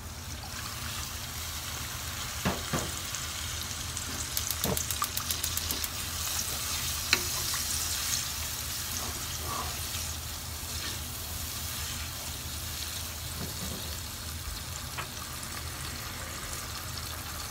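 Hot fried spice paste sizzling steadily in a nonstick frying pan as a little water is poured in and stirred with a wooden spatula. The spatula scrapes and knocks against the pan, with a quick run of clicks about five seconds in.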